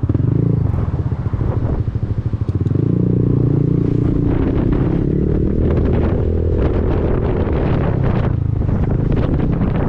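Honda Forza 300 scooter's single-cylinder engine running through an Arrow aftermarket exhaust: a slow, pulsing low-speed note, then about two and a half seconds in it pulls away and settles into a steady, louder drone under way. Wind buffets the microphone.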